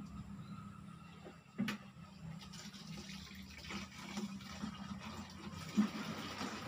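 Water running from a tap into a plastic watering can, a steady hiss that sets in about two and a half seconds in, after a short knock.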